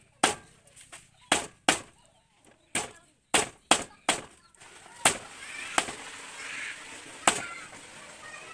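Cleaver chopping duck meat on a round wooden chopping block: about ten sharp, unevenly spaced knocks, some in quick pairs.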